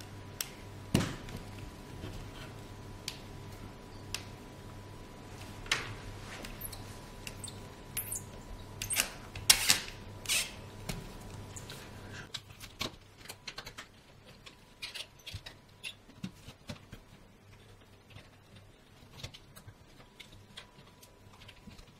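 Bolts squeaking and clicking as they are turned with an Allen wrench in the wood and plexiglass layers of a mechanical iris kit, with a few louder squeaks near the middle and quieter ticks later. The squeaking is normal and harmless.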